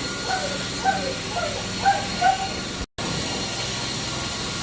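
Steady hiss of a carpet-cleaning extraction machine, with a dog whining in about five short, falling whimpers over the first two and a half seconds. The sound cuts out for an instant a little before three seconds in.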